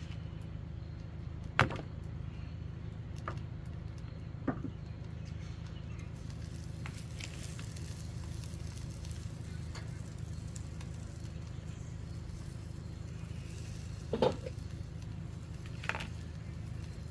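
Steady low hum with a few scattered sharp clicks and knocks.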